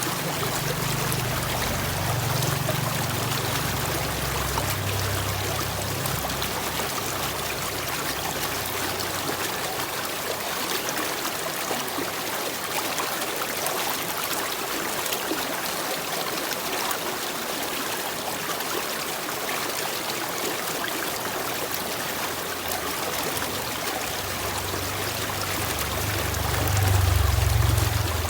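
Running water, a steady trickling flow. A low rumble sits under it for the first several seconds and swells again near the end.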